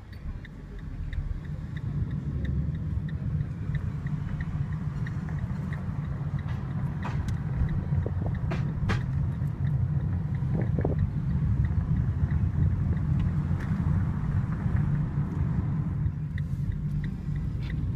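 A car being driven, heard from inside the cabin: a steady low rumble of engine and road noise that grows louder over the first couple of seconds. A few sharp clicks and knocks come around the middle.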